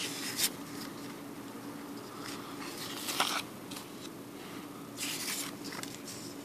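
Polymer naira banknotes being handled on a table: a few short rustles as the notes are picked up, laid down and turned over, the loudest a little after three seconds in, over a faint steady hum.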